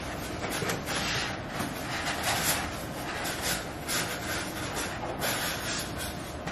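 Cardboard and paper packaging being rustled and scraped by hand while items are dug out of an opened iMac box: an uneven run of rubs, crinkles and small knocks.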